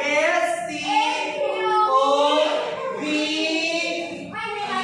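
A class of children's voices in unison, sing-song, with drawn-out notes.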